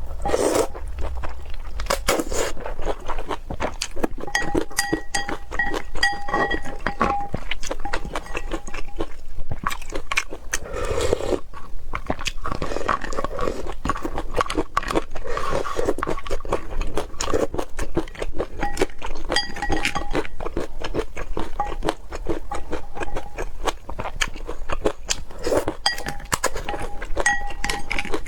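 Close-miked eating: crunching bites and chewing, a rapid run of short crisp clicks and mouth sounds without pause.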